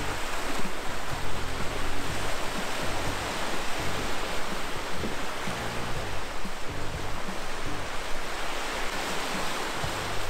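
Small waves washing onto a sandy beach with a steady rush of surf, under background music with a low bass line.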